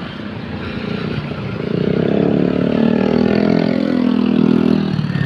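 A bus engine passing close by, its note rising and then falling in pitch as it goes past, loudest in the middle.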